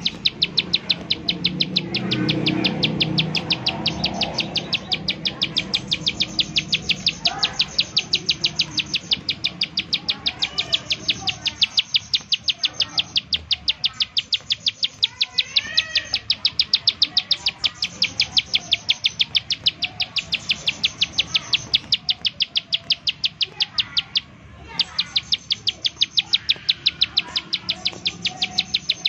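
Plain prinia (ciblek sawah) in its rapid 'nembak' song: an even series of high clicking notes, about four a second, with one short break near the end. Other birds chirp faintly behind it.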